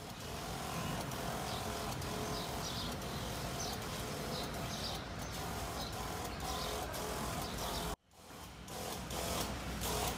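Backpack sprayer running steadily and misting disinfectant with a hiss. The sound drops out briefly about eight seconds in.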